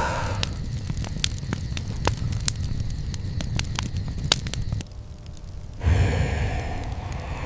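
Campfire crackling, with many sharp pops and snaps over a low rumble. About five seconds in it cuts off, and a second later a louder breathy rush begins.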